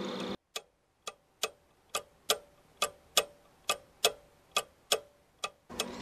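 Clock ticking: about a dozen sharp ticks, a little over two a second in a slightly uneven tick-tock rhythm, over dead silence. It sounds like an edited-in sound effect.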